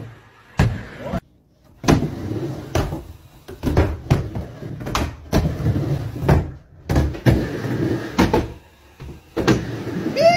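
Skateboard wheels rolling on a plywood mini ramp, with frequent sharp knocks and clacks of the board against the wood, about one every half second to a second.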